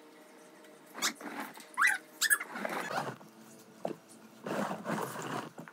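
African grey parrot calling: three short, sharp whistle-like squawks that sweep up and down in pitch, starting about a second in, followed by two longer rough, breathy sounds.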